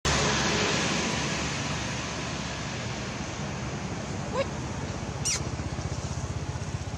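Steady outdoor background noise with a low, fast throb like a motor running nearby. Two short rising chirps cut through it about four and five seconds in.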